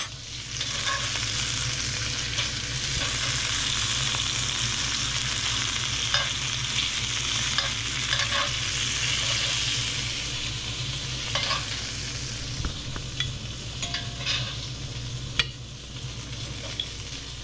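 Grouper fillets sizzling in butter and ghee in a cast iron pan, a steady frying hiss that eases toward the end. A few short clicks of metal tongs against the pan as pieces are lifted out.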